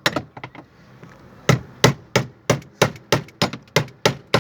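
Hammer blows knocking a part of a washing machine's spin-dryer motor assembly tight: a strike and a few light taps, a pause of about a second, then a steady run of about three strikes a second.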